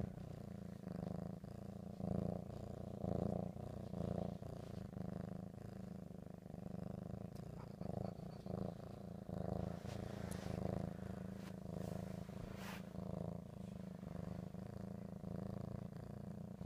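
Siamese kitten purring close up: a steady low rumble that swells about once a second with each breath. A few sharp clicks come partway through.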